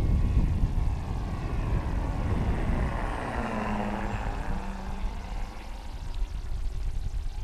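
E-flite T-28 Trojan electric model plane flying past overhead, its motor and propeller whining with a pitch that shifts as it passes, about four seconds in.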